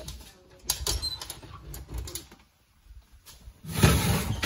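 Oven mitt being handled, with a few light clicks about a second in, then the kitchen oven door being pulled open near the end, the loudest sound.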